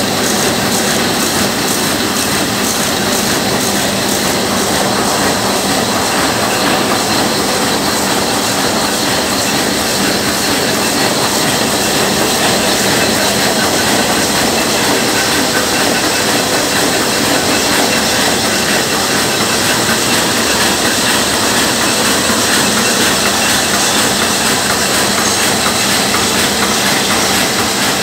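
Mitsubishi four-colour sheetfed offset press running: a steady, loud mechanical clatter of its cylinders, rollers and gears, with a continuous hiss.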